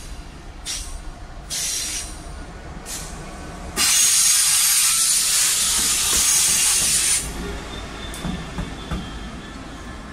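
A Class 66 diesel locomotive with its two-stroke EMD engine passes slowly at close range, its engine a steady low rumble. A few short hisses come first, then about four seconds in a loud hiss sets in sharply and lasts some three seconds as the locomotive goes by.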